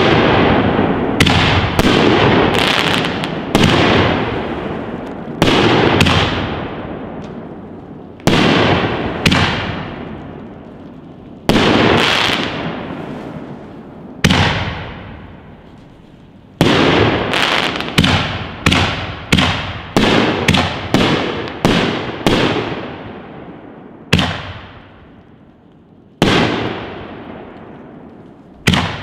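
Rack-fused consumer canister shells (Raccoon Fireworks Neon Skies) going off one after another, about two dozen sharp booms, each trailing off in a fading rumble. The spacing is irregular, and a quick run of several reports comes close together, where the rack chain-fires like a machine gun.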